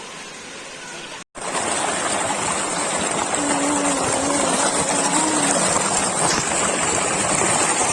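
Rushing water of a jungle stream or waterfall, a steady hiss that jumps louder after a sudden cut about a second in.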